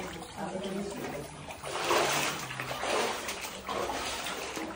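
Shallow water sloshing and splashing as a person wades through it step by step. There are louder swells of splashing about two seconds in and again near four seconds.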